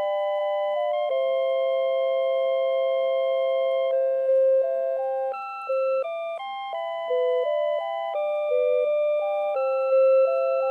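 CITIZEN CITE QHM3313-2 melody alarm clock playing one of its built-in tunes: clean electronic chime tones in two or three voices. A chord is held for a few seconds early on, then the notes change more quickly.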